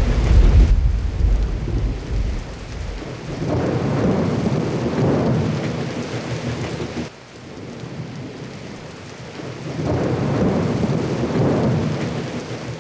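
Thunderstorm: steady rain with rolling thunder. A heavy low rumble fades over the first few seconds, then two more rumbles swell and die away.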